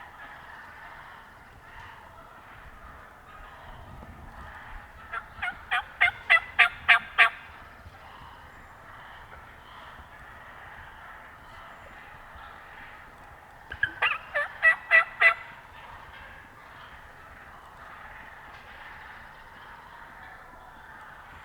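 Wild turkey yelping: two series of evenly paced yelps, the first of about ten notes growing louder, the second shorter, about fourteen seconds in.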